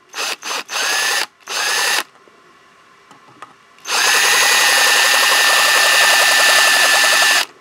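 Ryobi cordless drill running in reverse, driving a screw extractor's burnishing end to cut a cone into the head of a stripped hex bolt. It gives several short trigger blips in the first two seconds, then, after a pause, one steady run of about three and a half seconds with an even whine that cuts off abruptly near the end.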